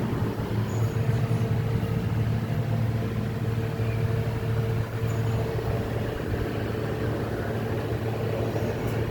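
Steady low mechanical hum with a few constant tones over a noisy haze, unchanging throughout.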